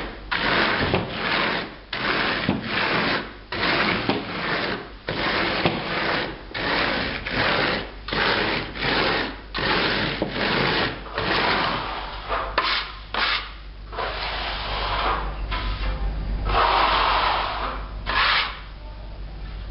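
A hand float rubbing over fresh grained mineral render in repeated rasping strokes, about one every half second or so, the render grains dragging under the float to cut the grooved texture. After about twelve seconds the strokes grow longer and steadier, with a louder stretch near the end.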